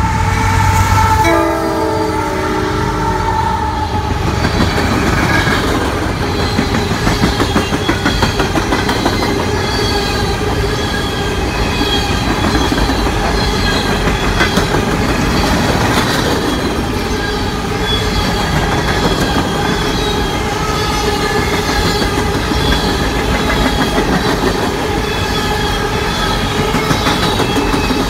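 A CSX coal train passing at speed. The locomotive horn sounds a chord that drops in pitch about a second in and stops around four seconds in. Then the long string of empty open-top coal hoppers rolls by, with a steady high metallic ringing from the wheels on the rails.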